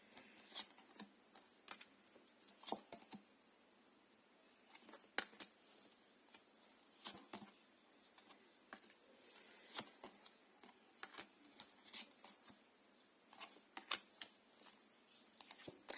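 Tarot cards being handled and laid out: scattered soft clicks and snaps, one every second or two, with near silence between.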